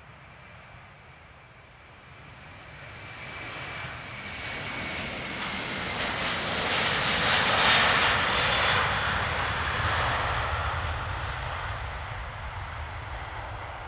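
Airbus A330-300 jet airliner's engines at takeoff thrust on the takeoff roll as it passes. The noise swells to a peak about halfway through, then fades as the aircraft rotates, with a faint high whine in the first few seconds.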